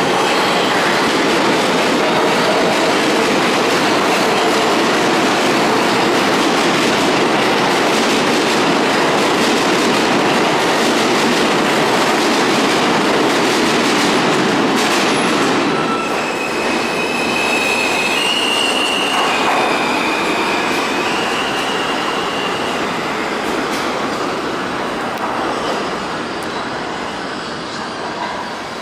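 R160 subway train pulling out of the station, its wheels on the rails making a loud, steady running noise. About halfway through, high wheel squeals come in for several seconds, and the noise fades as the train moves off down the tunnel.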